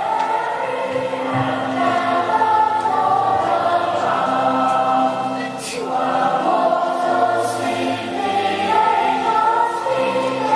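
Children's choir singing a Christmas carol over instrumental accompaniment, with held low notes under the sung melody.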